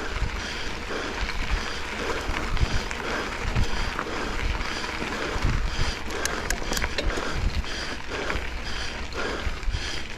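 Mountain bike ridden uphill on dirt double track: tyres rolling over the ground with scattered clicks and rattles from the bike, and wind rumbling on the microphone.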